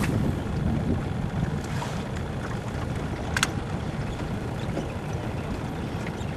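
Steady low rumble of wind on the microphone over open-water ambience in a small aluminium fishing boat, with a single short sharp click a little over three seconds in.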